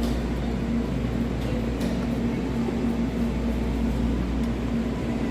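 Steady low mechanical hum with a constant droning tone, like building ventilation or refrigeration running, and a few faint light ticks.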